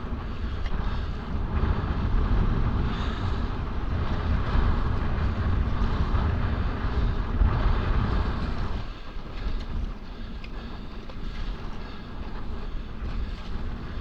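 Wind buffeting the microphone, with water sloshing and splashing as a paddle strokes and a stand-up paddleboard moves through small swells. The low wind rumble eases about nine seconds in.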